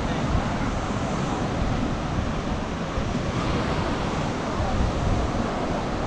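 Sea waves washing onto the beach, a steady surf rush, with wind buffeting the microphone.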